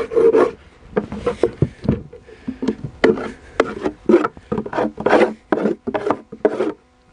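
Wooden beehive boxes being handled on a plywood board: a quick run of short wood-on-wood scrapes and knocks as a box is slid, lifted and set down, stopping near the end.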